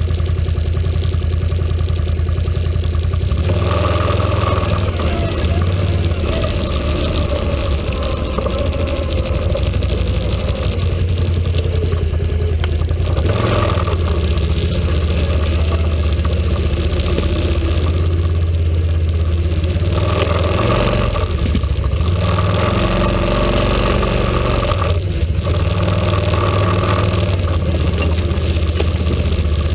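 Can-Am ATV engine running, idling at first, then opening up about three and a half seconds in and pulling through the woods with the engine note rising and falling as the throttle changes.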